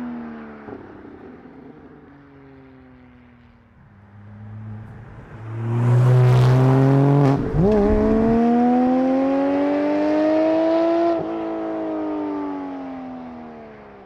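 Porsche 718 GT4's 4.0-litre flat-six through a Soul Performance race exhaust, driven hard: the revs fall away at first, then about five seconds in the engine goes to full throttle and revs up, takes a quick upshift, and pulls up through the next gear. About eleven seconds in the throttle is released and the revs fall steadily.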